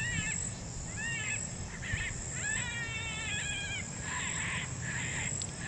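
FoxPro electronic predator caller playing its 'Lightning Jack' jackrabbit distress sound to call coyotes: repeated high, wavering squalls, several a second, turning raspier about four seconds in.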